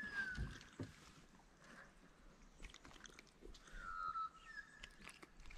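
Faint bird calls: a few short whistled notes falling slightly in pitch, one at the start and a pair about four seconds in, over light clicks and rustles of a small fish being handled on the line.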